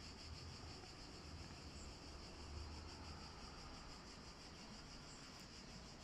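Near silence: a faint, steady background hiss.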